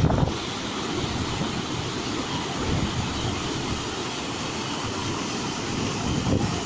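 Small waterfall rushing steadily: a constant, even noise of falling and churning water, heaviest in the low range.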